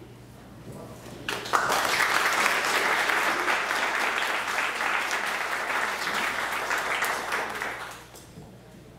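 Audience applauding: the clapping starts suddenly about a second and a half in, holds for about six seconds, and dies away near the end.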